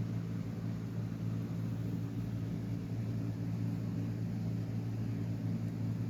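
Steady low machine hum with several fixed low tones and a faint hiss, like a running appliance or fan; no bird calls.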